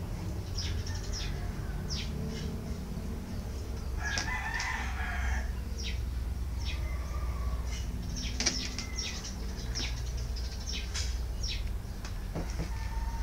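A rooster crows once, about four seconds in, lasting about a second and a half. Around it come many short, high, falling bird chirps over a steady low hum.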